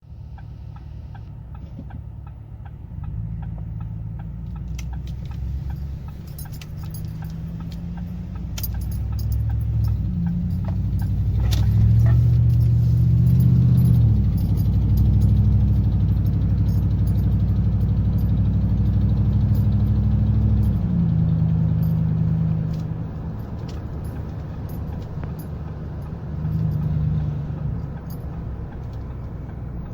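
2009 Ford F-150's V8 engine idling and being revved several times, held higher for several seconds in the middle before dropping back to idle, with a brief blip near the end. A rapid ticking rides on it that makes the truck sound like a diesel: an exhaust leak at the left-side exhaust manifold, as diagnosed by Ford.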